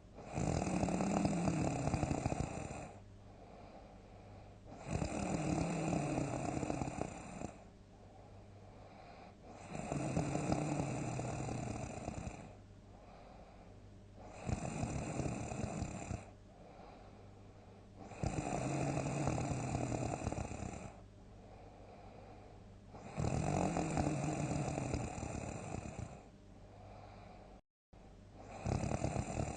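A person snoring loudly in deep sleep: a long snore of two to three seconds comes about every four to five seconds, with quieter breathing between. The sound cuts out for a split second near the end.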